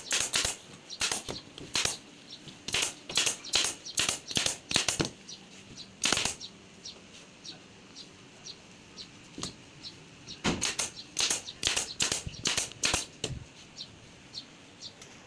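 Sharp knocks and clicks in irregular clusters, several strikes close together at a time, as a printed flex banner is fastened to the edges of a wooden frame on a workbench.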